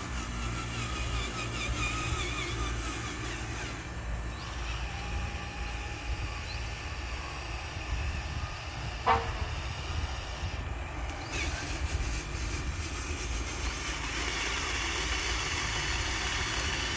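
Radio-controlled construction trucks running with a steady low mechanical hum, with one short, sharp falling squeak about nine seconds in.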